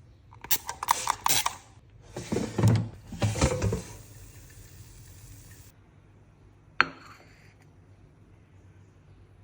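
Kitchen handling noises: a quick run of clicks and rattles, then two louder rustling, clattering bursts, and one sharp click near the end.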